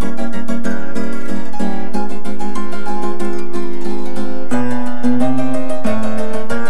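Background music: a quick plucked-string tune of short, fast notes, with lower bass notes joining about four and a half seconds in.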